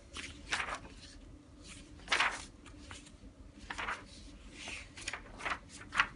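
Paper sheets being handled: a series of short, soft rustles.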